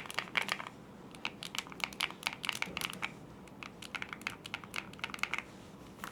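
Typing sound test on a custom-built ROG Azoth mechanical keyboard with BK Silver Wing switches and hollow aluminium-alloy keycaps: runs of rapid keystroke clacks broken by short pauses.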